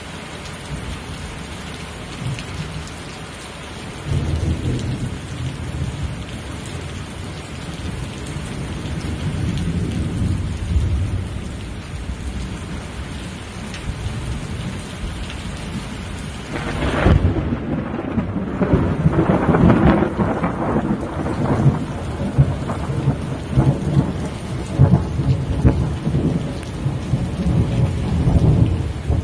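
Heavy rain falling steadily through a thunderstorm, with thunder rumbling low a few seconds in. About two-thirds of the way through comes a sudden, loud thunderclap, followed by a long rolling rumble.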